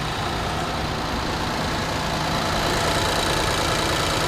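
2020 Infiniti QX60's 3.5-litre V6 running at a steady, raised warm-up idle just after a cold start. It runs smoothly with no misfire, now that the stuck-open fuel injector in cylinder 2 has been replaced.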